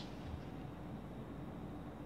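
Quiet background noise: a steady low hum with a faint even hiss.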